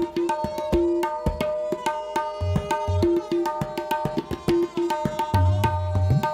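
Tabla solo: a rapid run of ringing strokes on the dayan, joined by deep, booming strokes on the bayan that come in strongly near the end.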